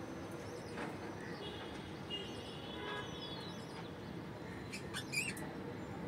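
Budgerigars in a nest box giving short high chirps over a steady background hiss, with a brief falling whistle midway and a few sharp clicks near the end.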